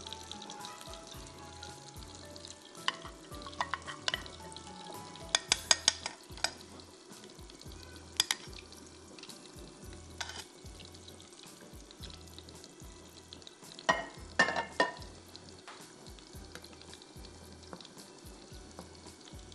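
Metal spoon stirring crushed digestive biscuits in a glass bowl, clinking sharply against the glass in short clusters, loudest a little past the middle. Butter melting in a frying pan sizzles softly underneath, with faint background music.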